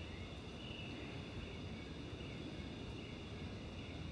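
Faint outdoor background: a steady low rumble with a high insect trill that comes and goes.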